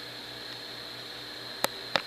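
Steady mechanical hum and hiss, with two sharp clicks about a third of a second apart near the end.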